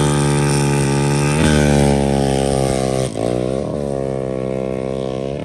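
Racing ATV engines at full throttle in a drag launch, the pitch held high and dipping sharply and then climbing again three or four times at the gear changes. The sound grows slowly fainter as the quads pull away down the track.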